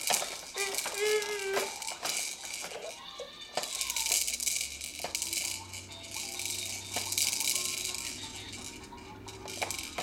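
Plastic bead-rattle toys on a baby jumper's activity tray, spun and knocked by a baby's hands: repeated clicking and clacking, with two longer spells of bead rattling in the middle. A short wavering vocal sound comes about a second in.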